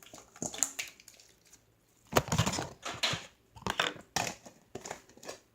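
Baby powder slime being handled and squished in the hands: an irregular series of short crackling, squelching noises, the loudest about two seconds in.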